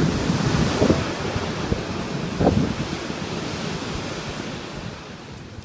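Ocean surf: a wave breaking and washing in, the rush loudest in the first second and slowly fading, with wind buffeting the microphone.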